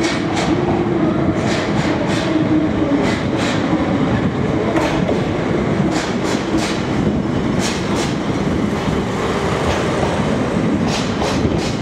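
Russell snowplow train hauled by a DE15 diesel locomotive passing along the platform: the diesel engine hums steadily while the wheels clack over rail joints and points in irregular sharp clicks.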